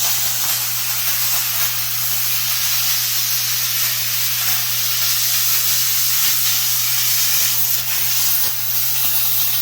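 McCulloch Deluxe canister steam cleaner jetting steam through its nozzle: a steady, unbroken hiss, with a steady low hum underneath.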